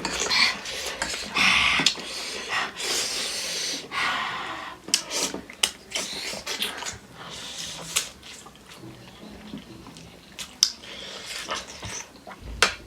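Close-miked eating sounds: wet chewing and slurping of spicy chicken feet and noodles. Many sharp clicks and smacks, with several hissy slurps of about a second each.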